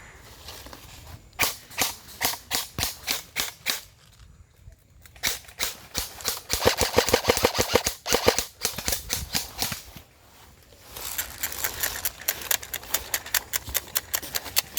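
Airsoft guns firing in rapid strings of sharp pops. There are three bursts of fire, with short lulls about four seconds in and again around nine to eleven seconds; the middle burst is the loudest and fastest.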